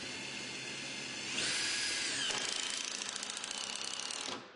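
Cordless drill driving a screw into Trex composite deck boards. The motor speeds up with a rising whine about a second and a half in, drops in pitch as the screw bites, and runs on with a fast ticking before stopping near the end.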